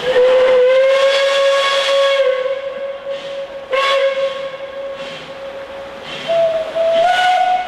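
Steam whistle of the narrow-gauge 2-6-2 tank locomotive 7A, blowing one long whistle that is loudest for the first couple of seconds and steps up in pitch near the end. A couple of exhaust chuffs come through about halfway as the engine works away.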